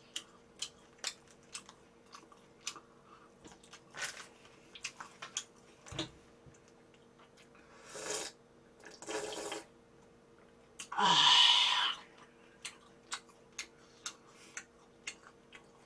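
Close-miked eating sounds: a person chewing cold buckwheat noodles (naengmyeon) and bulgogi, with many small wet mouth clicks. Several slurps come from a bowl held to the mouth, and the loudest is about eleven seconds in.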